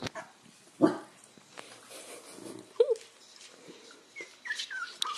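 Corgi giving short barks and a few brief high whimpers, the loudest bark about a second in.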